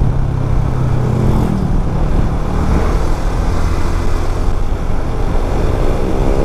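Motorcycle engine running steadily while riding in traffic, with road and traffic noise. The engine note drops about a second and a half in, as the bike eases off.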